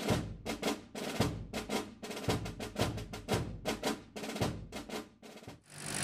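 Percussion-only intro music: a quick rhythm of sharp drum hits, about four a second, that stops shortly before the end.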